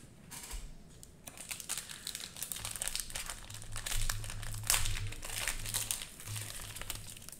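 Crinkly plastic wrapper of a Panini Prizm basketball cello pack rustling and crackling as hands pull it open, busiest a few seconds in.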